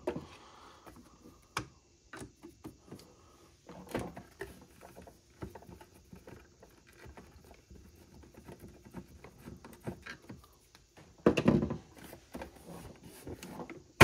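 Faint clicks and scrapes of a screwdriver working a stubborn screw out of the plastic underside of a Keurig K-Supreme coffee maker, with knocks from handling the plastic housing. A louder bout of handling noise comes about eleven seconds in.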